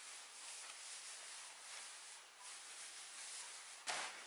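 Faint rustling and crackling of dry seaweed upholstery stuffing as hands tease it apart and press it onto burlap, with a short sharp knock near the end.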